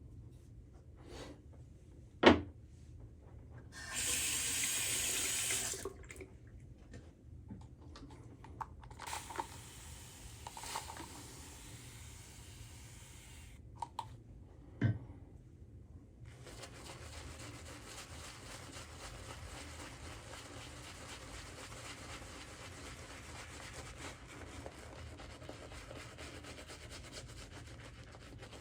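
Shaving prep at a sink: a sharp knock, then a tap running briefly for about two seconds, with scattered clicks and knocks of things being handled. From about halfway on, a steady fine scrubbing of a shaving brush working up lather.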